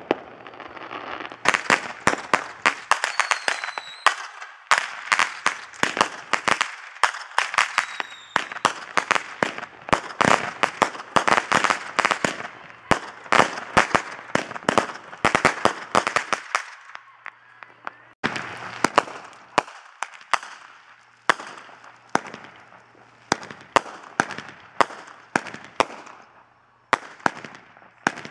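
Fireworks going off in fast runs of sharp cracks and pops, many a second, with two short falling whistles near the start. The cracking pauses for about a second some two-thirds of the way through, then starts up again.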